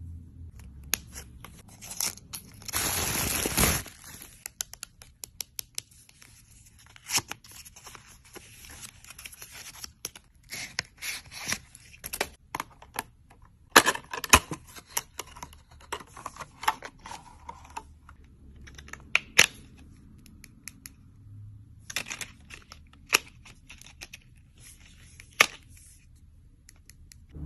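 Makeup packaging being unwrapped by hand: a loud tearing of packaging about three seconds in, then scattered crinkling of cellophane wrap and sharp clicks and taps of plastic cases and a jar lid being handled.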